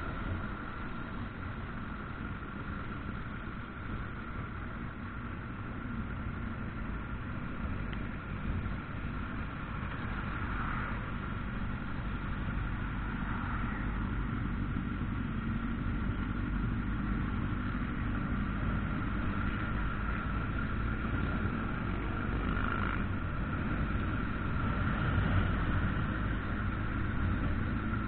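Motorcycles riding in a group: the rider's own motorcycle engine and the engines of the bikes around it running steadily, with wind noise on the onboard camera, growing slightly louder in the second half.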